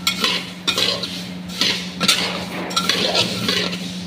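Spatula scraping and stirring vermicelli around a metal kadhai in quick repeated strokes, about two a second. The vermicelli is being dry-roasted in ghee and has turned fully brown, so there is little sizzle left.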